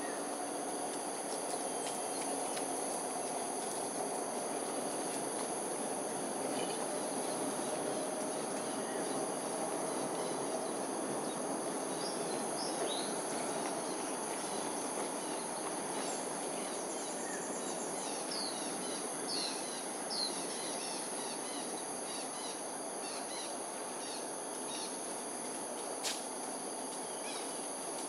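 Outdoor dawn ambience: a steady chorus of insects holding several high continuous tones over a constant low background hum. Short bird chirps are scattered from about twelve to twenty-two seconds in, and a single sharp click comes near the end.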